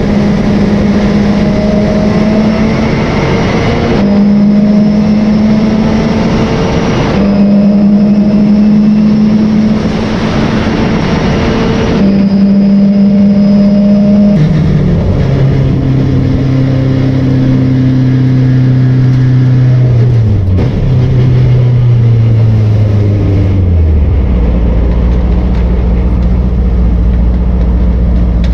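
Race car engine heard from inside the car, held at high, steady revs with short breaks every few seconds, then dropping in steps from about halfway and settling to a low steady note near the end as the car slows. Wind and road noise run underneath.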